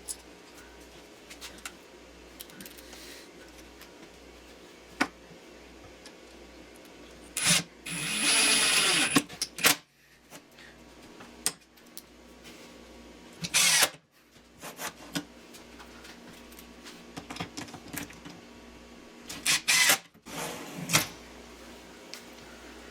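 Cordless drill/driver running screws into a metal drawer slide, in three short runs, the longest about two seconds, with small clicks and knocks of handling between them.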